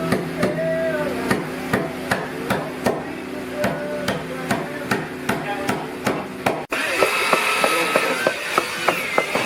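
A hammer striking repeatedly and quickly, about two to three blows a second, with an abrupt break about two-thirds of the way through, after which the blows go on.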